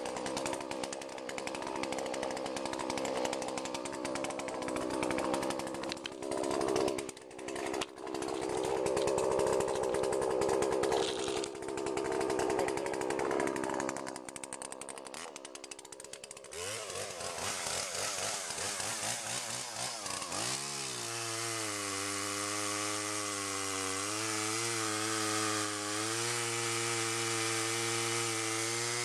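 Husqvarna 235 two-stroke chainsaw running after a cold start, its note wavering and uneven through the first half, then climbing over a few seconds and settling to a steady note for the last third.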